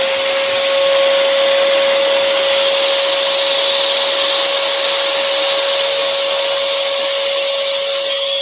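Workshop dust extractor running at full speed, a steady whine over rushing air, with the Axminster AT406SS scroll saw running alongside.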